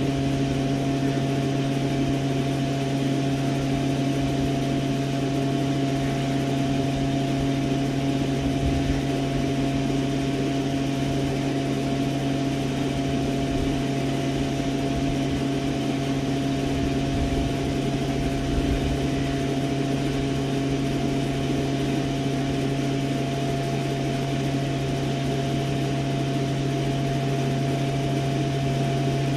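A steady low mechanical hum holding a few fixed tones, with an uneven rumble underneath.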